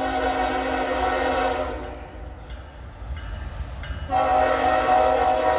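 Norfolk Southern locomotive's air horn sounding a chord in two long blasts: one for about a second and a half at the start, then, after a short break, a louder one beginning about four seconds in and held. The train's low rumble runs underneath.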